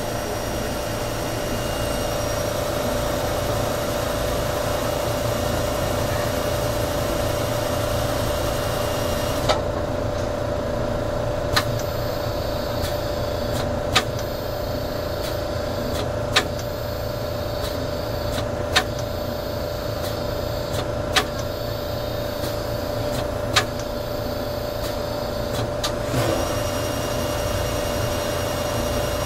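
JY-2025 automatic lathe with cross-drilling spindle and dividing device running, a steady machine hum with a constant tone. Through the middle, a sharp click repeats about every two and a half seconds, seven in all.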